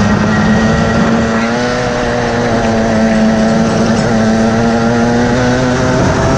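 DMAX racing kart's engine running hard at steady revs, heard close up from on board the kart, with a brief dip in the note near the end.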